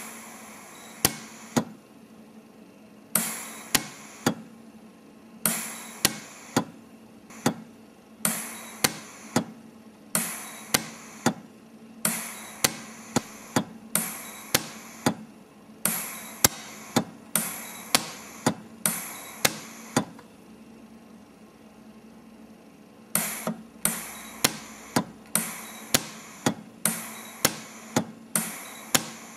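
Lampert PUK jeweller's pulse welder firing weld pulses to resistance-weld a small tube onto a disc: a run of sharp snaps, about one or two a second, each trailing off briefly. There is a pause of a few seconds near the end, and a faint steady hum from the machine underneath.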